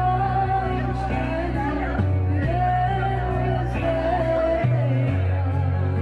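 Music: a song with a sung melody over held bass notes that change every couple of seconds.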